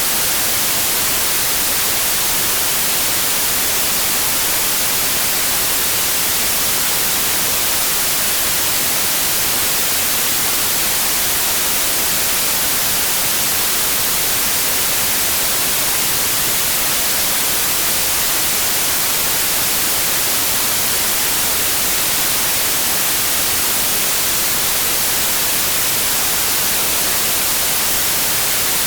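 Synthetic white noise: a loud, steady hiss with no change.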